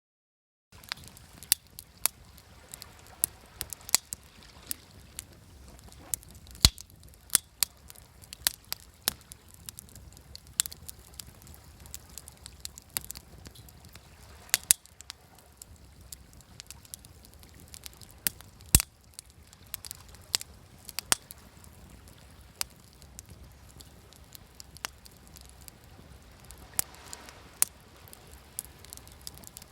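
Wood fire crackling, with sharp pops and snaps at irregular moments, several a second at times, over a soft steady wash of waves.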